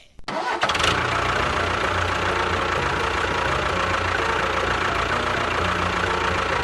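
An engine running steadily at idle, starting about half a second in after a brief silence.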